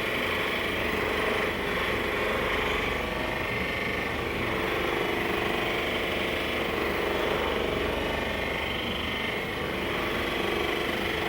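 Handheld percussion massage gun running steadily, a continuous fast-pulsing buzz.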